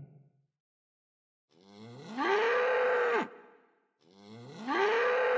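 Domestic cow mooing twice, each call about a second and a half long, rising in pitch, holding and then dropping away at the end.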